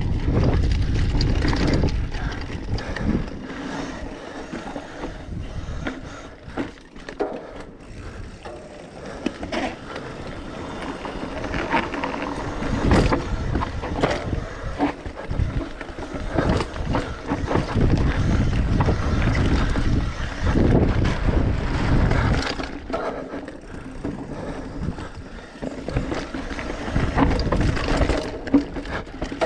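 Mountain bike riding down a rough trail: wind buffeting the microphone, with tyres crunching and the bike rattling and knocking over rocks.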